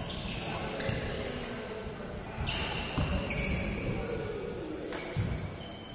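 Badminton rally: rackets strike the shuttlecock several times, with short high squeaks of shoes on the court floor between the hits.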